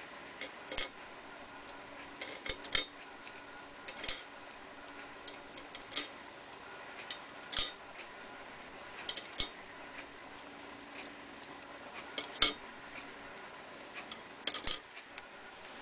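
Small metal case-trimmer pilots clicking and clinking as they are set one by one into the holder holes along the base of a Lyman Universal case trimmer. The clicks are sharp and irregular, singly or in quick pairs, and the loudest comes about twelve seconds in.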